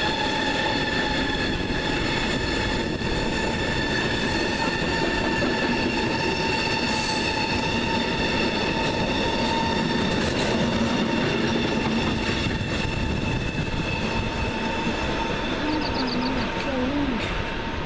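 A train running past on the rails, with a steady high-pitched whine over the rumble and clatter of its wheels on the track. The whine thins out near the end.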